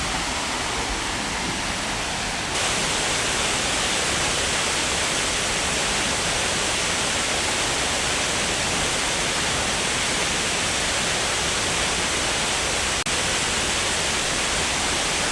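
Steady rushing of Dry Falls, a large waterfall. The rush becomes louder about two and a half seconds in, with a brief dip near the end.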